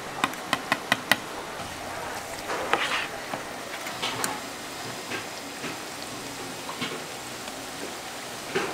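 Oil in a deep fryer sizzling steadily, with a quick run of five sharp clicks about a second in and scattered knocks after.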